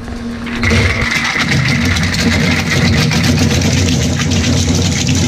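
ZERMA slow-speed granulator with an 8 mm screen grinding red plastic caps. Its geared motor hums steadily at first. Just under a second in, the caps reach the rotor knives and a loud, dense crackling and crunching sets in and continues.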